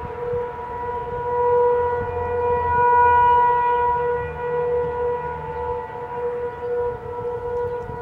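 Federal Signal 500 civil defense siren sounding a steady tornado-warning tone during a scheduled test, swelling louder about two and three seconds in and easing off again.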